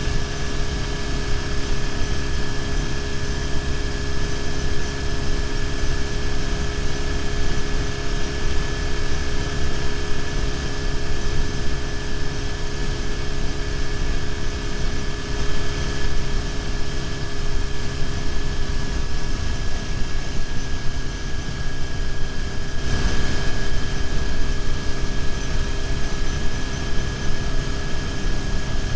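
BMW R1150GS boxer-twin motorcycle engine running at a steady cruise, with a continuous rush of wind and road noise.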